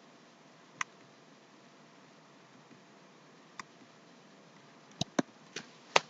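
Computer mouse clicking over faint background hiss: six sharp clicks, single ones about a second in and near the middle, then four in quick succession near the end.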